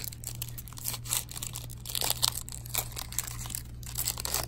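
Panini Absolute Football card pack's wrapper being torn open and crinkled by hand, in irregular crackles loudest about two seconds in, over a steady low hum.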